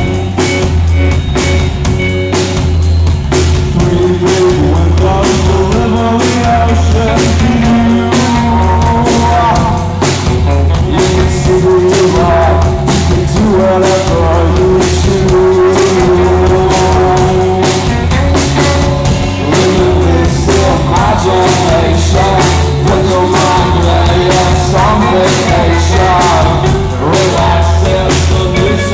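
Rock band playing live: electric guitar, drum kit and keyboard, with steady drum beats throughout.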